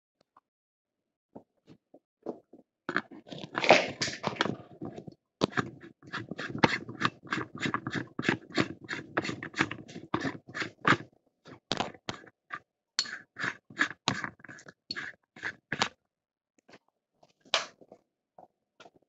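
Rifle cartridges pressed one at a time into a magazine by hand: a run of short, sharp metallic clicks, about two to three a second, with a short pause about eleven seconds in.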